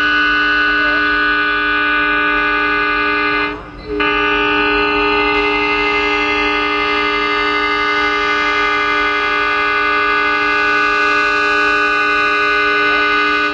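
Indian Railways locomotive air horn sounding a loud, steady chord. It breaks off briefly about three and a half seconds in, then is held again for nearly ten seconds as the locomotive approaches.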